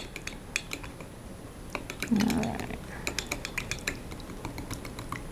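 A spoon clinking and scraping against the inside of a glass measuring cup as it stirs bouillon paste into warm water to dissolve it: quick, irregular clicks.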